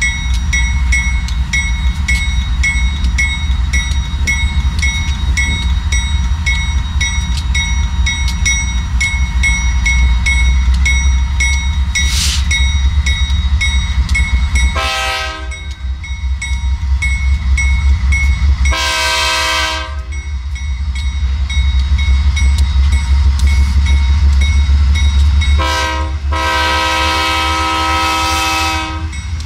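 GE Dash 9-44CW diesel locomotive running heavily as it pulls a train slowly past a grade crossing, with a bell ringing in quick even strokes through the first half. The air horn then sounds three times, two shorter blasts and a long last one near the end.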